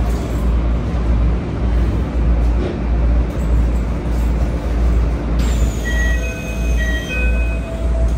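Keikyu 1000 series electric train running, heard inside the car: a steady deep rumble of wheels and motors. About five and a half seconds in, a falling high whine and a series of short tones at shifting pitches join it.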